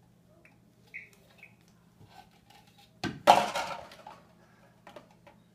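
Dishes and cutlery clinking as a dishwasher is unloaded: a few light clinks, then a loud clatter about three seconds in that rings on for about a second.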